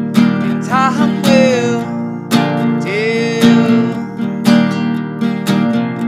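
Acoustic guitar strummed steadily, with a man's voice singing two long held notes over it, one about a second in and another around the middle.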